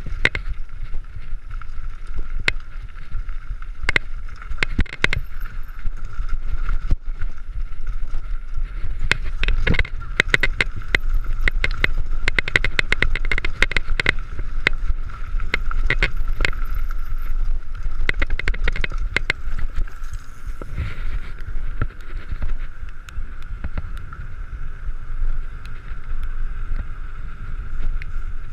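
A mountain bike riding over rough trail, with constant clattering and rattling of the bike over bumps, a steady high hum and wind rumbling on the microphone.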